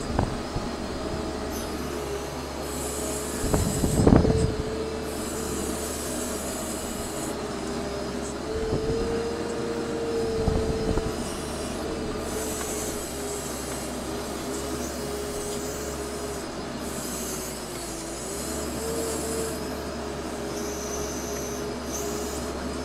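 Compact wheel loader heard from inside its cab, its engine running steadily with a whine from the drive, which wavers and briefly drops in pitch late on. A loud thump comes about four seconds in, and a lighter knock comes around ten seconds.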